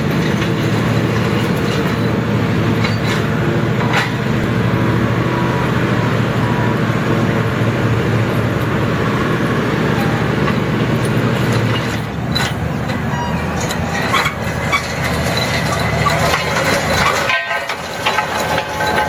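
New Holland L185 skid steer's diesel engine running steadily with its Woods/Gill soil pulverizer attachment working. From about twelve seconds in, the engine note grows rougher and mixes with clatter and knocks.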